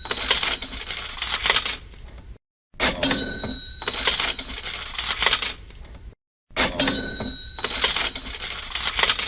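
Cash register sound effect playing on a loop, repeating about every four seconds: a ringing bell ding followed by a jingling rattle of coins, with a short silent gap between repeats.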